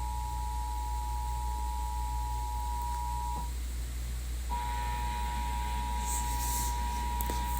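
Emergency Alert System attention signal: a steady two-tone pure beep (the EAS 853 and 960 Hz pair) that cuts off a little past three seconds in and starts again about a second later, announcing an alert message.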